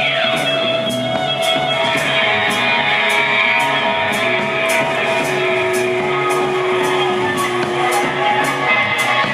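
Live psychedelic rock band playing: dense, sustained electric guitars over bass, with a steady high tapping beat about twice a second and a falling slide in pitch at the very start.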